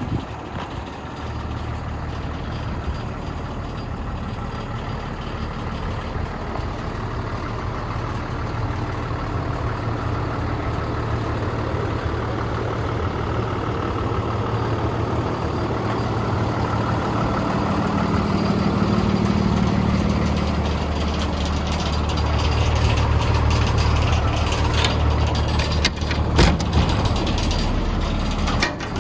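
A 2016 International 4300 dump truck's Cummins ISB diesel idling steadily with a low hum, which grows louder twice. A couple of sharp clicks come near the end.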